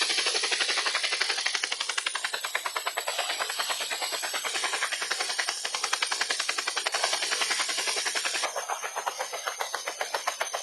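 Helicopter in flight: the rotor and engine make a rapid, steady, evenly pulsing beat, with a thin high whine above it.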